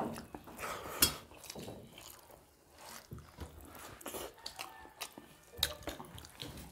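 Wet, smacking eating sounds of people eating rice and curry with their hands: chewing and lip smacks, with fingers mixing rice on steel plates. A sharp click about a second in is the loudest sound.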